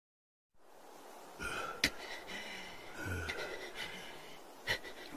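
Heavy breathing and short gasps from the anime fighters after a brief total silence, with a few sharp clicks in between.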